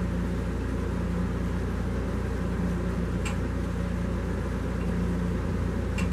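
Steady low mechanical hum over an even background noise, with a faint tick about three seconds in and another near the end.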